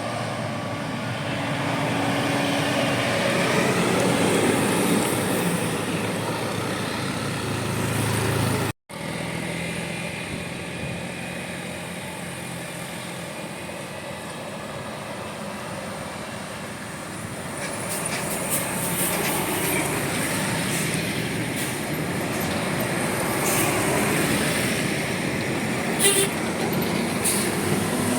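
Buses on a road: diesel engines running with traffic noise and short horn toots. The sound breaks off suddenly about nine seconds in and resumes.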